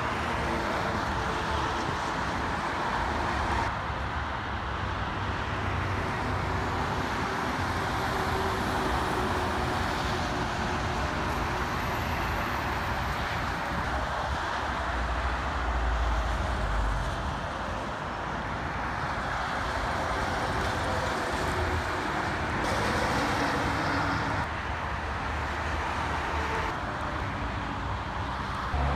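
Steady highway traffic: a constant rush of tyre noise from passing cars and semi trucks, with a low diesel engine rumble swelling briefly about halfway through.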